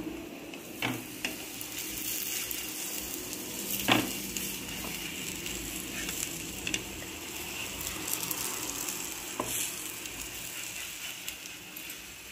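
Ragi roti sizzling as it cooks on a hot tawa, a steady crackling hiss, with a few light knocks of handling and one sharper knock about four seconds in.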